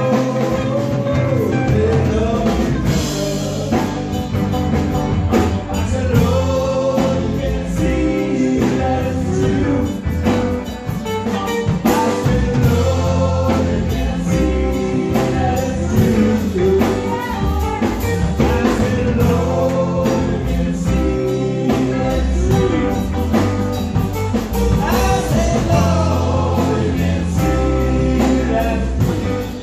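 Live band playing through a small PA: electric guitars, bass, drum kit and keyboard, with a man singing lead.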